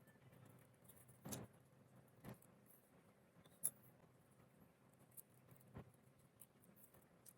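Near silence: quiet room tone with a few faint, scattered clicks and scratches, the sharpest about midway through.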